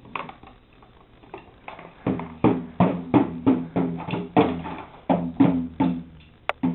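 Toy drum beaten with plastic sticks: a few light taps at first, then steady strokes about two to three a second from about two seconds in, with a low pitched tone sounding under the beats.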